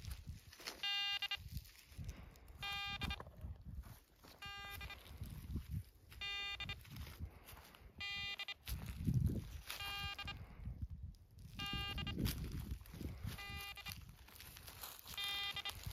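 Long-range field-scanning gold detector beeping in search mode: a short, buzzy electronic beep about every two seconds, with low rumbling noise underneath.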